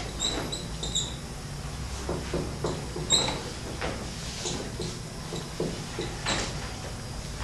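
Dry-erase marker writing on a whiteboard: short scratchy strokes with a few high squeaks, clustered in the first second and again about three seconds in.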